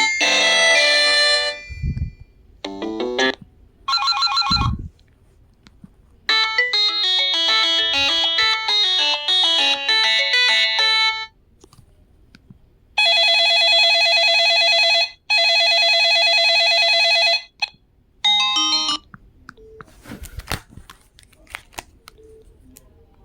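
Samsung SGH-X507 mobile phone playing its polyphonic ringtones one after another through its small loudspeaker, each a few seconds long: short electronic melodies and rising arpeggios, then a steady two-tone ring played twice. A few faint clicks come near the end.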